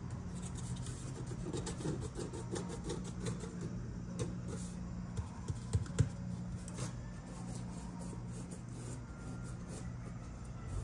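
Fingers scratching and rubbing a cardboard box flap: light scratchy rustling with small clicks, a few sharper ones about halfway through, over a steady low hum.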